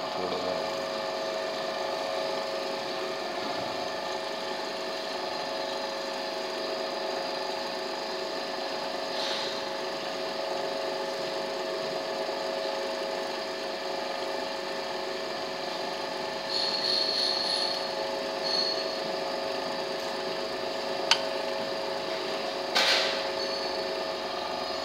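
KTK M360 high-speed precision bench drill running steadily with a constant hum. A brief high-pitched whine comes about two-thirds of the way through, and a sharp click and a short burst come near the end.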